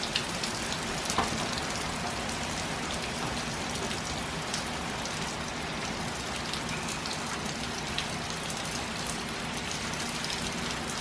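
Heavy hurricane rain falling steadily, a dense even hiss with scattered drip ticks, over a faint low steady hum.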